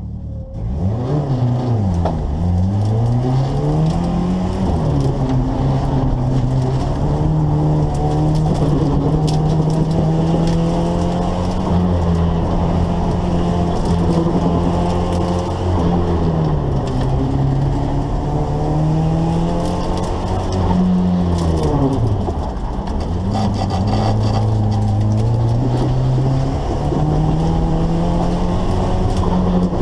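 Turbocharged Volvo B23 four-cylinder engine heard from inside the cabin, launching about half a second in and then revving up and dropping back several times as it shifts gears and lifts between cones, with a deep dip in revs about two-thirds of the way through.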